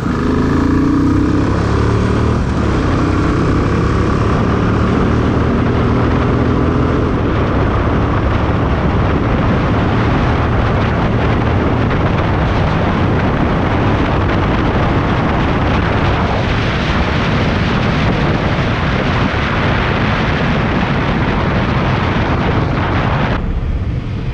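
Royal Enfield single-cylinder motorcycle, on its stock exhaust and air filter, accelerating hard through the gears, its pitch rising in the first few seconds. As speed builds, heavy wind rush on the microphone drowns out the engine, and it eases near the end.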